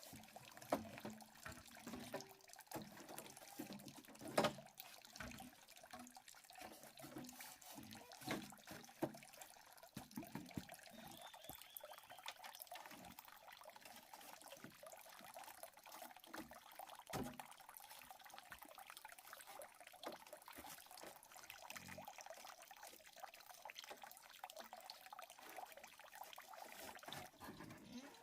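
Faint water trickling and dripping, with scattered short knocks and splashes.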